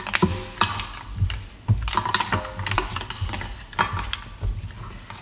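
Mussel shells and a spatula clattering against a stainless steel pan as the mussels are stirred through the sauce: irregular clicks and knocks.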